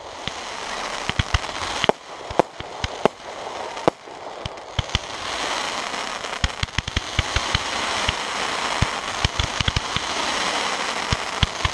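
Aerial fireworks going off: a few sharp shell bursts in the first few seconds, then a dense crackling hiss packed with many small pops that thickens over the second half.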